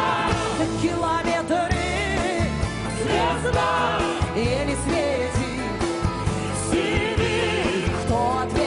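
Live song: a woman singing with vibrato into a microphone over a backing band.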